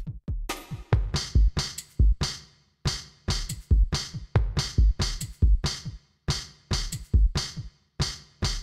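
Electronic background music with a steady drum-machine beat and heavy bass-drum thumps.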